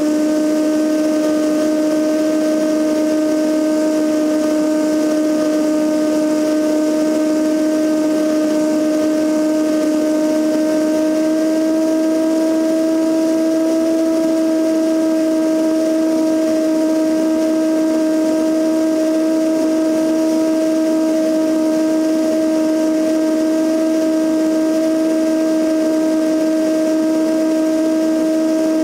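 Cessna 172N's four-cylinder Lycoming engine and two-blade propeller droning steadily in cruise, with rushing wind noise, heard from a camera mounted on the outside of the plane. The pitch rises slightly about ten seconds in.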